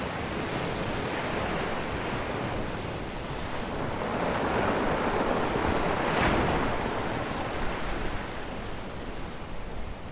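Ocean surf: a steady wash of waves, swelling to a louder breaking wave about six seconds in, then easing off.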